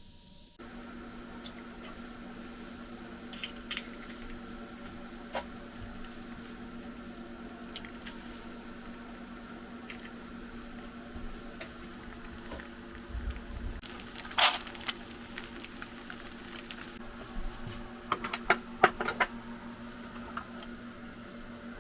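A steady hum with scattered clicks and taps, and a few sharper knocks about fourteen seconds in and again near the end.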